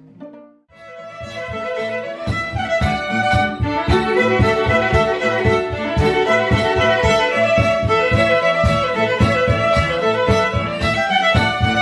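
Live music led by a violin, with quick note attacks throughout. It starts again after a short pause about a second in, then plays on steadily.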